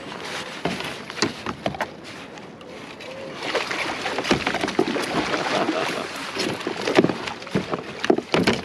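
Water splashing and sloshing against a kayak as a lingcod is scooped into a long-handled landing net, heaviest in the middle, with scattered sharp knocks before and after.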